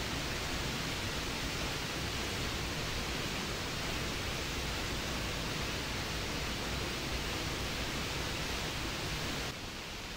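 Waterfall in flood, a steady rushing of heavy, swollen water pouring over rocks. A little before the end the sound steps down quieter, to the rush of the flooded stream below the falls.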